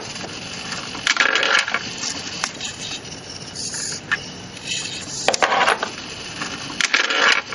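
Small hobby servo motors of a robot arm whirring in several short bursts as the arm moves, with clicks and a coin dropping into the vending machine's output tray as change.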